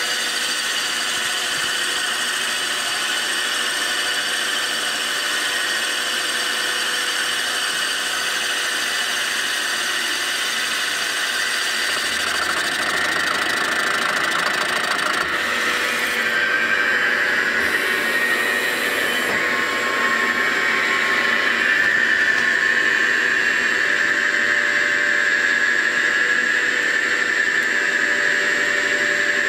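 CNC mill spindle turning a boring bar through a cylinder of an aluminium Lotus 910 engine block, opening the bore for oversized liners: a steady machine whine with high squealing tones. The sound shifts about halfway through and grows slightly louder after that.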